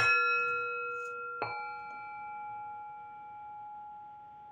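Two singing bowls struck with mallets, one right at the start and the other about a second and a half later at a different pitch, each ringing on and slowly fading.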